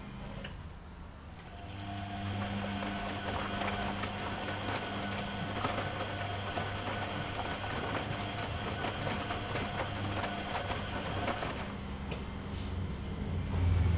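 Privileg 370 S washing machine's motor running, starting about two seconds in with a steady hum and light ticking, then stopping near the end; a louder low rumble begins just before the end.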